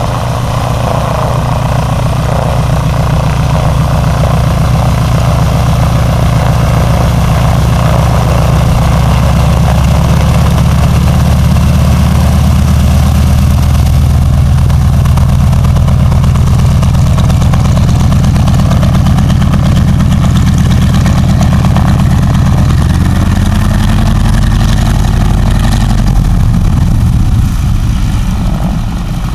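North American Harvard's nine-cylinder Pratt & Whitney R-1340 Wasp radial engine running at taxi power with the propeller turning. The engine note drops lower about three-quarters of the way through, and the level dips slightly near the end.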